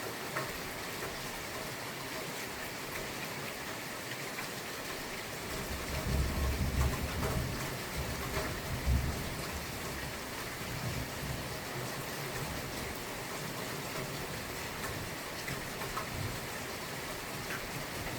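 Steady rain hiss, with a low rolling rumble of thunder starting about six seconds in that swells twice and fades out by about eleven seconds.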